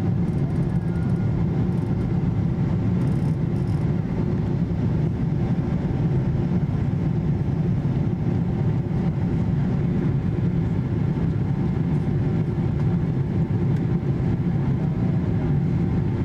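Steady cabin roar of a Boeing 777-200 climbing after takeoff: jet engine noise and airflow heard from a window seat beside the wing, even and unbroken.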